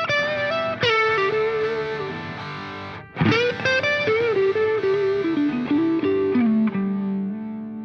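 Background music: an electric guitar with effects plays a melody with sliding notes, ending on a held note that begins to fade.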